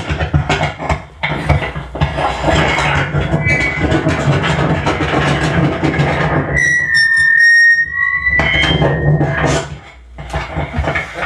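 Live experimental noise performance: a dense, crackling wash of amplified noise over a steady low hum. Past the middle a high, piercing whistle with overtones cuts through for about two seconds, and the noise drops away near the end.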